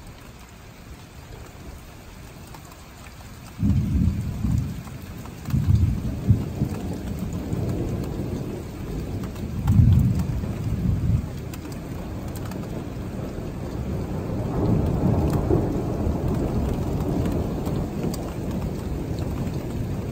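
Steady rain, then thunder breaking out suddenly about three and a half seconds in, cracking loudly several times over the next few seconds and rolling on as a deep rumble that swells again about two-thirds of the way through.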